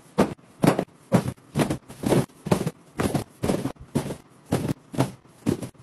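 A steady run of sharp knocks, a little over two a second, evenly spaced.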